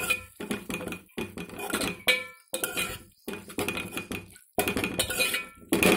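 Metal spatula stirring drumstick pieces through thick tomato gravy in a metal pot, scraping and clinking against the pot's sides and bottom in irregular strokes with short pauses between them.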